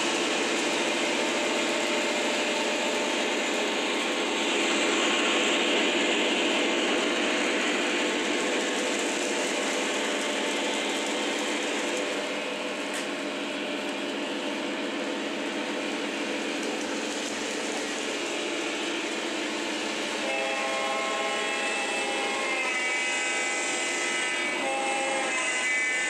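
O scale three-rail model trains running on the track, a steady rumble of wheels and motors. About 20 seconds in, the Lionel Legacy diesels' onboard electronic horn blows in several blasts.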